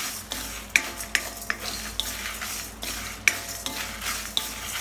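A spatula stirring coriander seeds, dried red chillies, dal and coconut pieces as they roast in a metal kadai for sambar powder: irregular scrapes and sharp clicks against the pan, about two a second.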